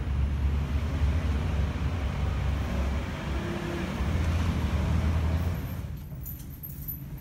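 Steady low rumble of street traffic outdoors, which drops to a much quieter indoor background about six seconds in.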